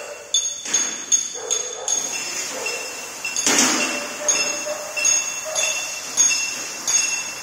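Metal being struck repeatedly, irregularly about two blows a second, each blow ringing at the same pitches, with one heavier crash about three and a half seconds in.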